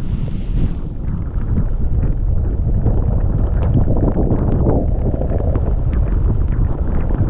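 Heavy wind rumbling on an action-camera microphone while riding a snowboard through a blizzard, building up about a second in and then holding.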